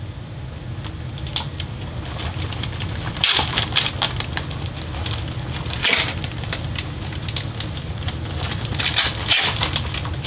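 Flexible foil-wrapped duct crinkling and crackling in irregular bursts as it is handled and pushed onto the bathroom fan's duct collar, over a steady low hum.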